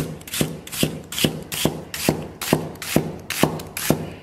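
Chinese cleaver slicing a red onion into shreds on a thick wooden chopping block: a steady run of knocks on the wood, about two and a half a second, each with a short cutting rasp.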